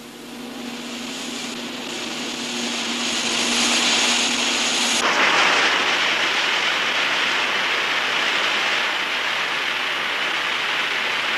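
A steady roar like a jet engine, building up over the first few seconds with a humming tone and a high whine. About five seconds in it changes abruptly to a louder, even rushing noise.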